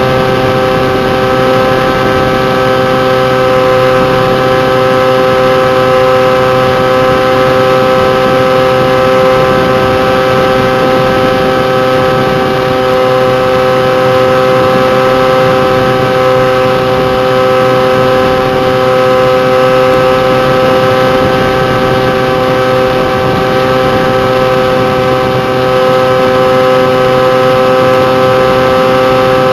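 Electric motor and propeller of a Bixler RC glider running at steady throttle in flight: an unchanging whine over a rush of air, picked up by a camera mounted on the wing.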